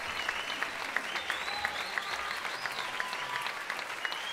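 Audience applauding: many hands clapping.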